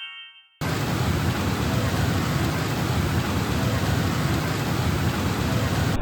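The last of a rising run of chime tones dies away, then about half a second in a loud, steady rushing noise cuts in abruptly and holds evenly.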